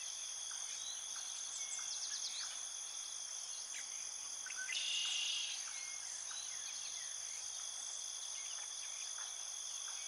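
Outdoor insect chorus: a steady, high-pitched trilling of crickets or other calling insects, with a brief louder buzz about halfway through.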